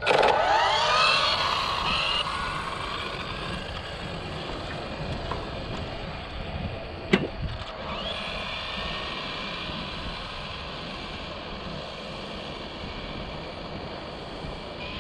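Arrma Limitless RC car's brushless electric motor and drivetrain whining loudly as it launches and accelerates away. The pitch sweeps up, then slides down and fades as the car recedes, leaving a faint, steady whine, with one sharp click about seven seconds in.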